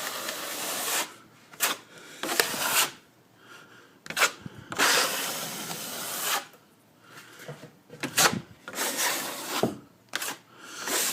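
Plastering trowel scraping across a ceiling in repeated strokes, some short and some over a second long, laying on a very fine fourth skim coat of plaster.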